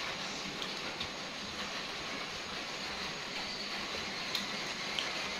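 Steady background hiss with a few faint clicks.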